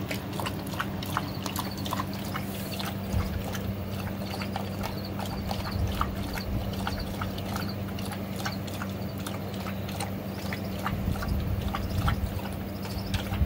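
Two dogs lapping water from a rubber tub: a quick, irregular run of wet clicks and slurps, a few each second, with louder laps near the end.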